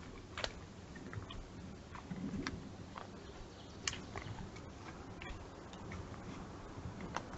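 Scattered sharp clicks and snaps, a few seconds apart at irregular intervals, from a young moose working its head and muzzle against a tree trunk, over a faint low rumble.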